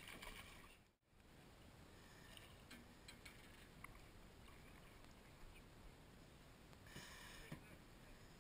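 Near silence: faint background hiss with a few soft ticks, a brief dropout about a second in, and a short burst of hiss about seven seconds in.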